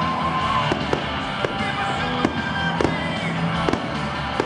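Aerial fireworks going off in repeated sharp bangs, roughly one every half second to a second, over music playing steadily in the background.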